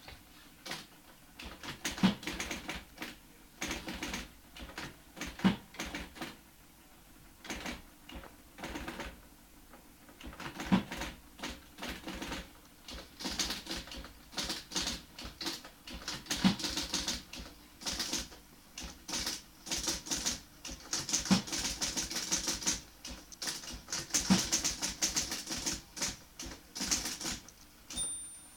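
1960 IBM Model C electric typewriter being typed on fast: rapid runs of key strikes, with a louder thud every few seconds and a brief high ring near the end.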